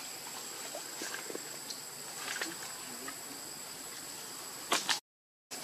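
Steady high-pitched insect drone with faint scattered ticks and rustles. Near the end come a few sharp, loud clicks, and then the sound cuts off suddenly.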